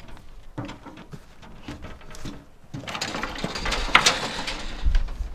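Cardboard packaging being handled: a few light knocks and rustles, then from about three seconds in a rough, continuous scraping as a cardboard box is slid off the top of a packing crate.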